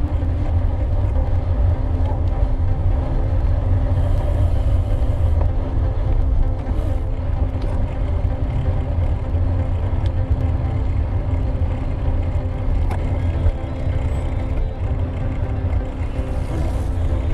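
Steady wind rumble on the microphone of a moving bicycle, with a few steady pitched tones held underneath.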